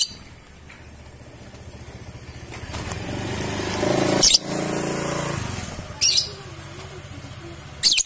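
Fischer's lovebird giving short, shrill calls four times: at the start, about four seconds in, about six seconds in and at the end. A motorcycle engine runs underneath, growing louder from about two and a half seconds in and fading after about five and a half seconds.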